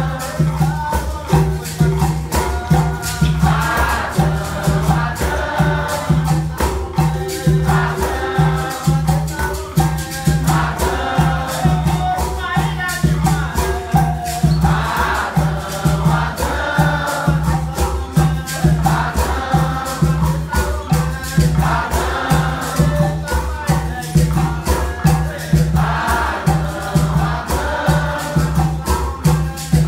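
Capoeira Angola roda music: berimbaus with caxixi rattles and an atabaque drum keep a steady repeating beat, while a group sings in phrases over it.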